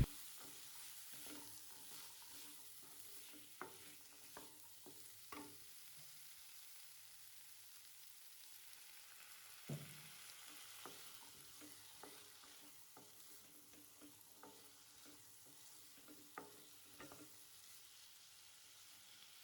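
Potatoes and green peas frying in spiced oil in a pan, with a faint steady sizzle. A spatula stirs them, knocking and scraping against the pan now and then; the loudest knock comes about ten seconds in.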